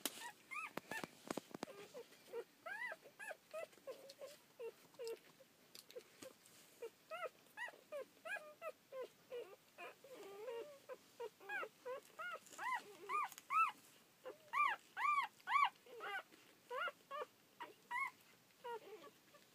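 Newborn rough collie puppies squeaking and whimpering as they nurse: many short, high, arching squeaks, one or two a second, with lower, softer squeaks between, growing busier and louder in the second half.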